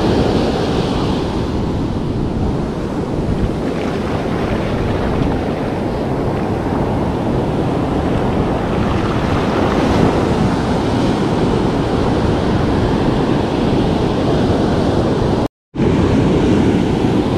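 Heavy ocean surf breaking close by and washing up over the sand in a steady, loud churn. The sound cuts out for a moment near the end.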